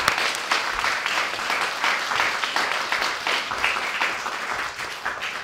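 Audience applauding at the end of a poetry reading, the clapping slowly dying down near the end.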